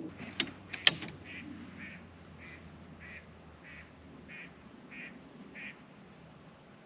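Two sharp knocks near the start, then a mallard quacking: a run of about eight short, evenly spaced quacks, a little under two a second.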